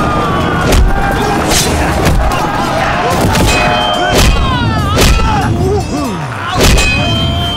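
Battle sound effects: several heavy thuds and clashes of weapons, mixed with fighters' shouts and yells. One yell falls in pitch about six seconds in.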